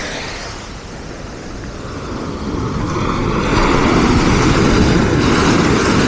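Sea waves on a pebble beach: the surf dies down briefly, then the next wave builds and breaks into foam, swelling to a loud rushing wash in the second half.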